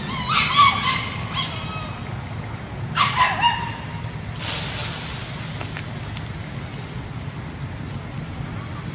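Dogs barking in two short bursts of high-pitched barks, one at the start and another about three seconds in, followed by a brief hissing rush about halfway through.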